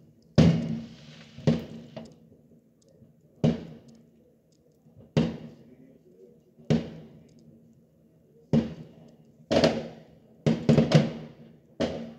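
Aerial fireworks bursting: about a dozen sharp bangs at irregular intervals, each trailing off in a short echo, coming faster near the end.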